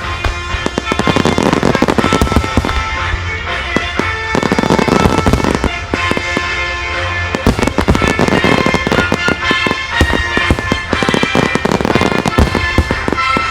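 Fireworks display: many quick booms and crackling bursts going off in close succession, over loud music playing throughout.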